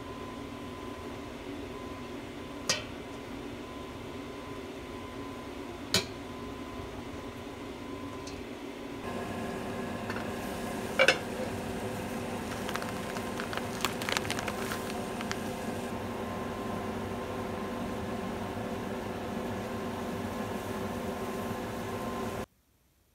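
Kitchen sounds over a steady hum. In the first part a metal spoon clinks sharply twice against a stainless steel bowl. After a change about nine seconds in, the background grows louder with a pot of water boiling on a gas stove, and there is one loud clink and then a run of small clicks as a package of rice noodles is handled. The sound cuts off just before the end.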